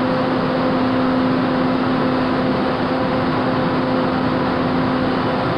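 Steady subway-station rumble with a low, even electrical hum, from a light-rail car standing at the platform.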